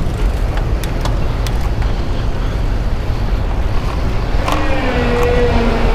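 Wind buffeting the microphone while riding a bicycle in traffic, with steady road rumble. About four and a half seconds in, a nearby motor vehicle's engine drone comes in and shifts in pitch.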